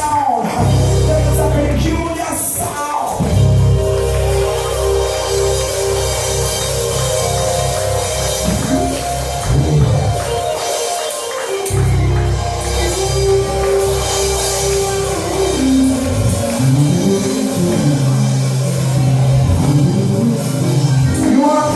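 Live church band music: an electric keyboard holding chords over a bass line that changes every few seconds, with a drum kit playing along.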